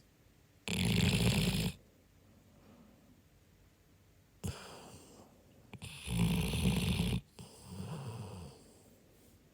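Snoring in deep sleep: two loud snores, each about a second long, one about a second in and one about six seconds in, with softer breaths between.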